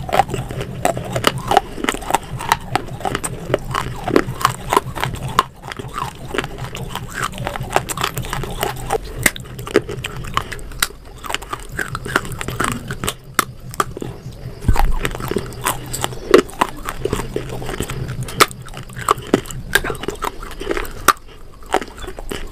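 A piece of baked clay pot being bitten and chewed: many sharp, crisp crunches in quick succession, over a steady low hum.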